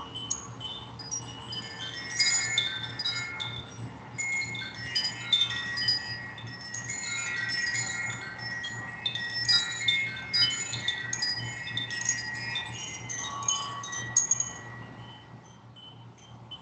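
Wind chimes tinkling: many bright high ringing notes overlapping densely, then thinning and dying away in the last couple of seconds, over a faint steady low hum.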